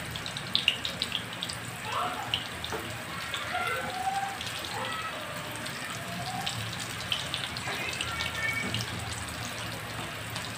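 Chicken cutlets coated in fine vermicelli shallow-frying in hot oil: a steady sizzle scattered with crackling pops.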